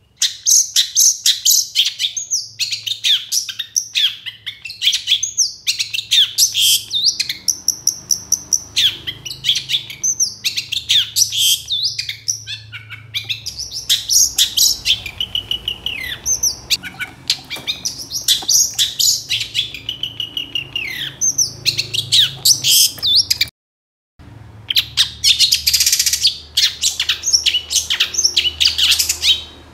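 Long-tailed shrike (cendet) singing continuously, a fast, varied run of sharp chirps, trills and short whistles. It breaks off once, briefly, about two-thirds of the way through.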